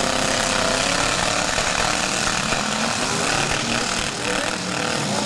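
Several unmuffled demolition derby truck engines running and revving together: a loud, steady, raspy din with wavering pitch.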